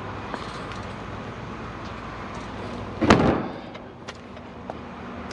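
A single loud, deep thump about three seconds in, with a few faint clicks, over steady outdoor background noise.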